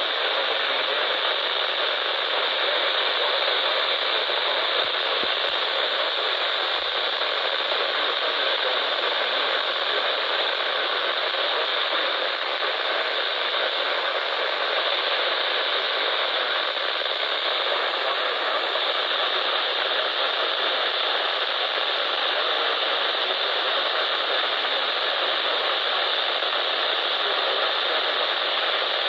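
Steady radio static: an even hiss with no tone or voice in it, unchanging in level throughout.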